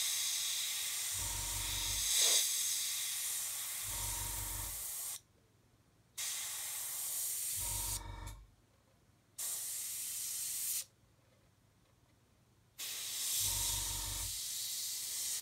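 Airbrush hissing as it sprays thinned paint, in four spells with short silent pauses as the trigger is pressed and released. A short low hum comes in during several of the spells.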